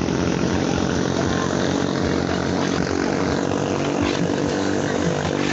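Small 220cc racing-boat engines running at high revs, a steady engine note with only slight changes in pitch.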